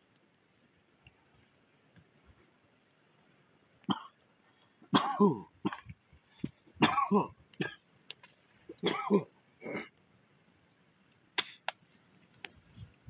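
A man coughing and clearing his throat in three rough fits about two seconds apart, followed by a couple of sharp clicks.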